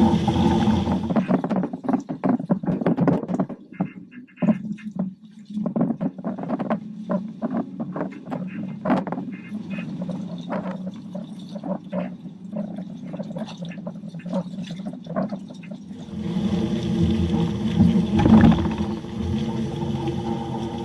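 Engine of a first-generation Toyota Tacoma pickup running steadily at the start and again for the last few seconds. In between, the engine hum drops away and irregular sharp clicks and crackles take over.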